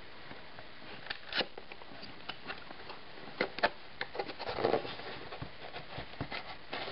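Fingers prying at the tuck flap of a small cardboard camera box, making scattered light clicks, taps and paperboard scrapes, with a brief rustle about two thirds of the way through.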